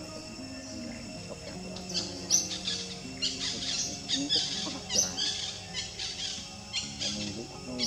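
Gentle background music, with birds chirping in quick high bursts over it from about two seconds in.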